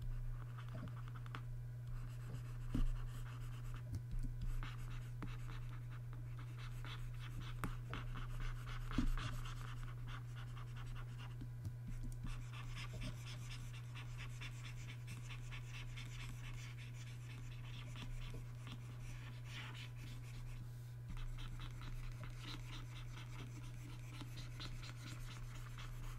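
Faint scratching of a pen stylus stroked across a Wacom graphics tablet, in runs of quick back-and-forth strokes, over a steady low hum.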